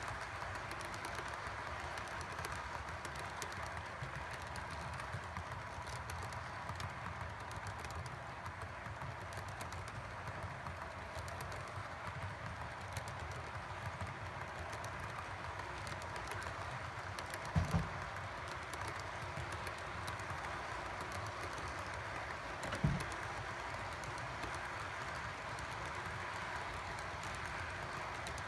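Model freight train cars rolling along sectional track, a steady rattle with fast clicking of small wheels over the rail joints. Two brief low thumps stand out, one about two thirds of the way through and another a few seconds later.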